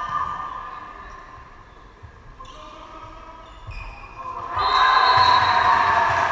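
Volleyball players and spectators shouting and cheering as a point is won, breaking out suddenly about four and a half seconds in and staying loud; before that, a few scattered calls from players during the rally.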